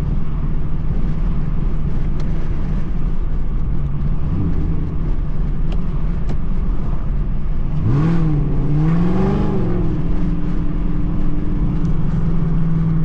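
A loud car engine and exhaust drone steadily while driving, heard from inside the car. About eight seconds in, the engine note climbs, dips, climbs again and settles back to a steady drone.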